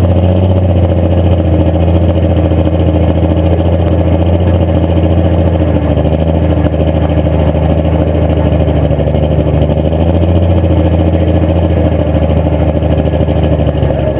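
Pulling tractor's engine running loud and steady, heard up close from the driver's seat, with smoke pouring from its exhaust stack.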